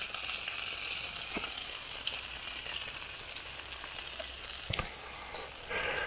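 Food sizzling and spitting in a foil packet over a small campfire of twigs, a steady hiss with fine crackles, and one sharp click near the end.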